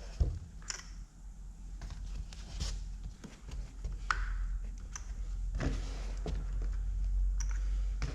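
Scattered clicks and knocks of hand tools and metal engine parts being handled during a diesel engine teardown, with one short squeak about four seconds in, over a low steady hum.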